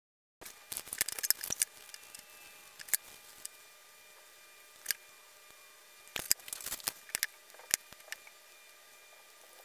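Scattered light clicks and taps of small metal handle pins and tools being handled, in clusters about a second in and again around six to seven seconds in, over a faint steady hum.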